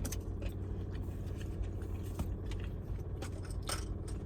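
A car engine idling steadily, heard from inside the cabin as a low hum, with scattered small clicks and smacks from eating.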